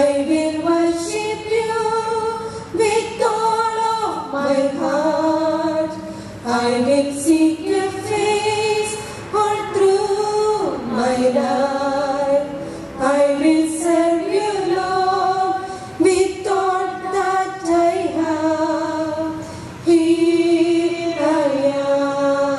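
Women's voices singing a slow hymn, holding long notes that step from pitch to pitch.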